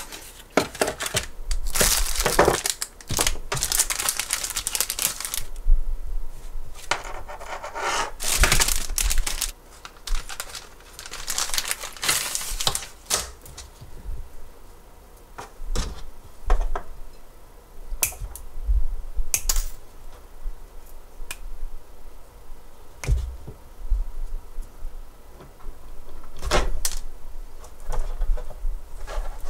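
Hands working at a desk: bursts of rustling and crinkling of paper and plastic through roughly the first half, then scattered small clicks and taps of handling wires and tools, with another short rustle near the end as electrical tape is wrapped onto a wire joint.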